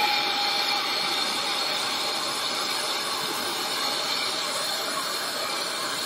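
Handheld gas torch burning with a steady hiss while it heats a steel bolt, brazing on copper-phosphorus rod to build up the bolt's diameter.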